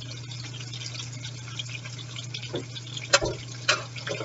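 Breaded chicken strips frying in hot oil in a skillet: a steady crackle with scattered small pops. There is a steady low hum underneath, and a few sharp clicks come near the end.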